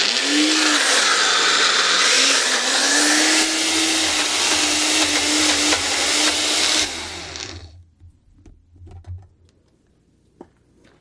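Keyton personal blender's motor running, blending a thick fruit-and-nut smoothie slowly enough that the cup needs shaking. Its pitch dips about two seconds in and recovers, then the motor winds down and stops about seven seconds in, followed by a few light clicks and knocks from the cup.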